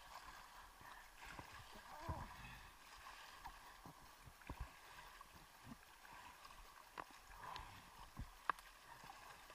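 Faint lapping water with small splashes and sharp drips close to the microphone, scattered irregularly, as the craft is paddled over calm water.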